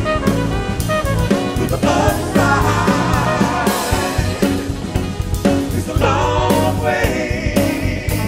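Live jazz-soul band playing an instrumental passage: trumpet and alto saxophone lines over drum kit, upright bass, guitar and keyboards, between the singer's lines.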